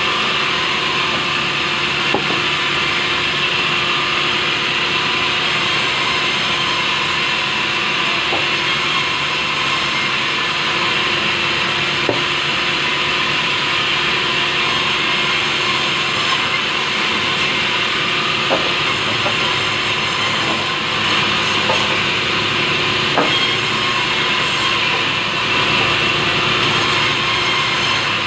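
Sawmill band saw running and ripping through large timber, a steady hiss and whine of the blade in the wood, with a few sharp knocks of boards being handled on the table.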